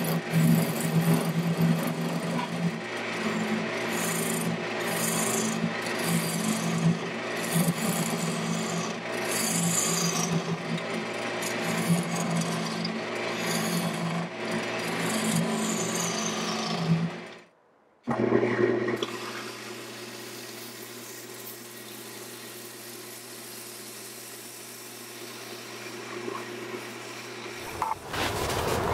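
Wood lathe motor humming steadily while a gouge hollows the end of a spinning wooden blank, a continuous scraping cut that rises and falls as the tool moves. About two-thirds of the way through the sound cuts out for a moment, then the lathe hums on alone, quieter, with no cutting.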